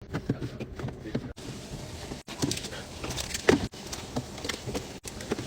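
Drink bottles and cans knocking and clinking as they are handled and set into a fridge, a string of short sharp knocks broken by several abrupt cuts, with a faint voice about halfway through.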